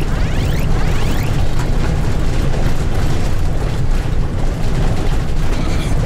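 Loud, steady low rumble of road and engine noise inside a moving motorhome.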